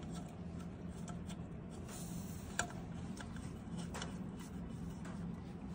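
Light rustling and small ticks of a Techflex-sleeved rubber heater hose being handled and pushed onto a fitting at the back of an engine intake, with one sharp click about two and a half seconds in. A steady low hum lies underneath.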